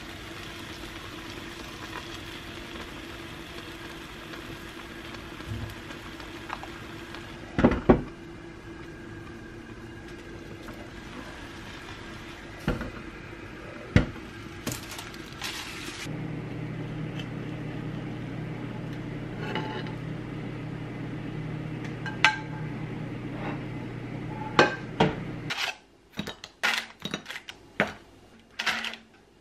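Kitchen cooking sounds: pans, a lid and utensils clinking and knocking against a steady hum. A glass pan lid is set down about halfway through. A lower hum follows, and near the end there is a run of quick clatters of dishes and utensils.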